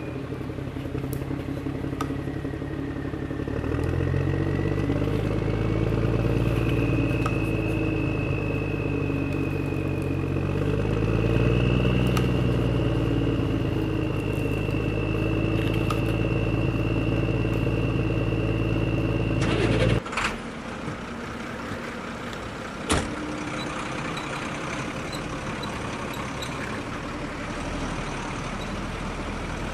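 Heavy diesel engine sound revving up and down, with a high whine riding over it. It cuts off abruptly about two-thirds of the way through, leaving a quieter steady engine hum with one sharp click a few seconds later.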